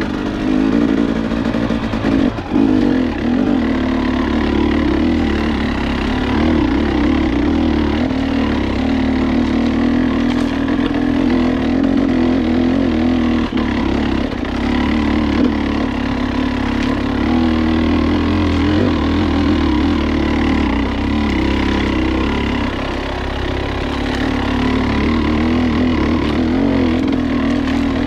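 KTM 300 XC two-stroke dirt bike engine running under throttle on trail, its note wavering up and down with the throttle and dipping a little near the end.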